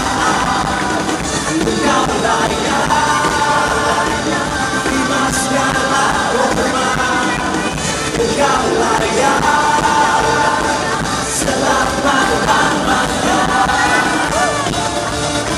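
Live praise-and-worship music: a band playing with several voices singing together, and a cymbal crash or two.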